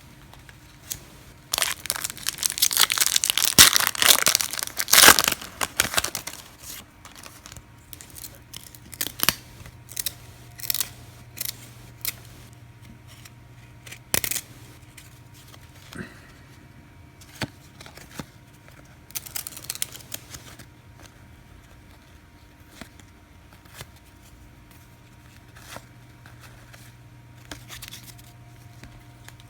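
A trading card pack's wrapper being torn open and crinkled, loudest about two to six seconds in and again briefly near twenty seconds, with scattered short clicks and rustles of cards being handled in between.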